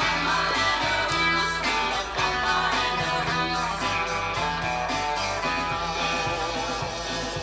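Electric guitar played along with a recorded rock track, with a moving bass line and a steady beat underneath.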